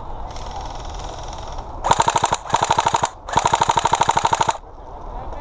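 Airsoft gun firing on full auto: a fainter string of rapid shots, then three loud rapid bursts close by starting about two seconds in, the last one the longest.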